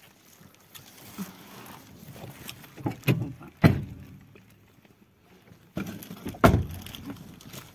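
A few dull thumps and knocks inside a car. The loudest come about three and a half seconds in and again about six and a half seconds in, with rustling between them.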